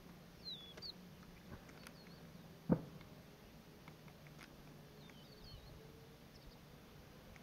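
Faint short, high bird chirps a few times over a low steady hum, with one sharp knock a little under three seconds in.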